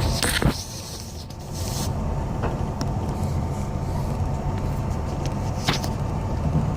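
Inside a moving city bus: steady low engine and road rumble, with a sharp knock about half a second in, after which the rumble briefly drops for about a second before coming back, and a few lighter clicks and rattles.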